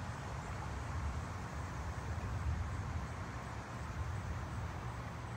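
Wind buffeting the microphone: a steady, flickering low rumble with a fainter hiss above it.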